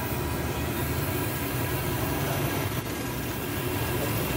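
Round pakoris deep-frying in a large karahi of hot oil: a steady sizzling hiss over a low, steady rumble.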